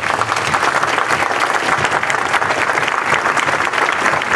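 A crowd breaks into applause, many hands clapping together in a dense, steady patter.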